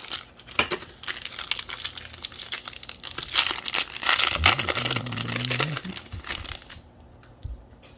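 Plastic wrapper of a Topps baseball card pack crinkling and tearing as it is opened, a dense rustle that stops about seven seconds in.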